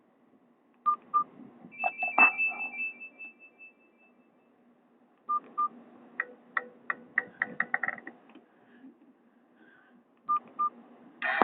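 A Nokia 216 phone's speaker plays short Nokia 5730 XpressMusic alert tones one after another, each led by two short beeps. First comes a high chime that fades over about two seconds. About six seconds in there is a quick run of plucked notes, and a third tone begins right at the end.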